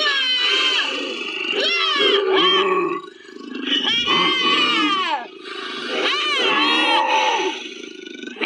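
Troll creature sound effects: a series of long roaring, growling cries, each bending up and down in pitch, with short breaks between them.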